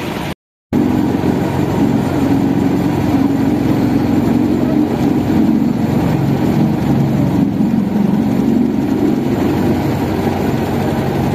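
Motorboat engine running steadily under way, a low even drone with river and wind noise over it. A brief gap of silence just after the start.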